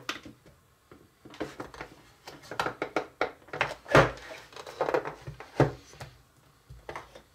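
Hard plastic clicks and knocks from a Play-Doh Burger Builder toy being worked by hand: its press lever is pushed down onto the dough and lifted again, with the loudest knock about four seconds in.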